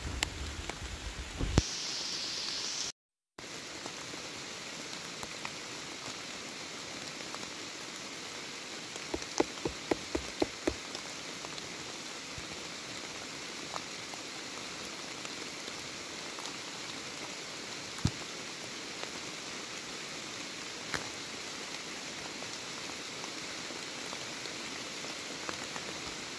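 Steady rain falling, broken by a short gap about three seconds in, with a quick run of sharp taps around ten seconds in and a single tap near eighteen seconds.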